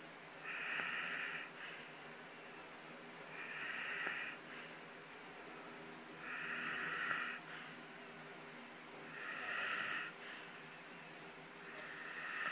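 A man snoring very loudly, each snore a noisy breath of about a second, repeating roughly every three seconds, five times.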